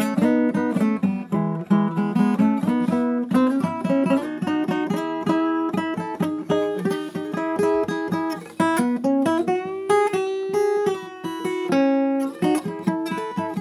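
Instrumental acoustic guitar music with chords strummed in a steady rhythm. A chord rings out longer from about nine and a half seconds, then the strumming picks up again.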